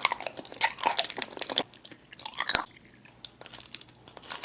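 Close-miked eating: crunchy bites and wet chewing, dense through the first second and a half, with another crunch and a sharp snap about two and a half seconds in, then softer chewing.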